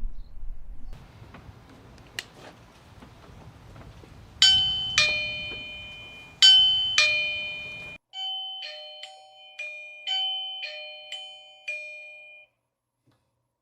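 Video doorbell chime sounding a two-note ding-dong twice, each note struck and fading. A quicker run of chime notes follows and stops about three-quarters of the way through. A short click comes about two seconds in.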